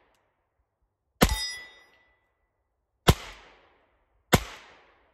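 Three revolver shots from a Colt Model 1894 in .38 Long Colt, fired double action one to two seconds apart, each trailing off in a short echo. The first is followed by a brief metallic ring.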